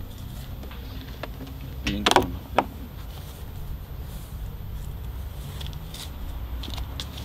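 A short clatter and a sharp click about two seconds in, over a steady low rumble, as test gear is handled.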